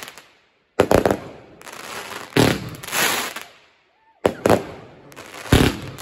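Fireworks going off in three volleys, each a sharp bang or two followed by a rushing, hissing burst that fades away.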